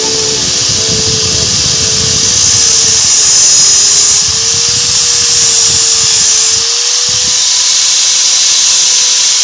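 Small handheld electric power tool running steadily, with a strong high hiss and a motor tone that sags slightly midway before picking back up.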